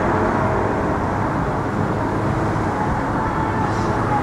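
Class 466 Networker electric multiple unit pulling away, a steady rumble of the train running on the rails with a faint whine from its traction motors.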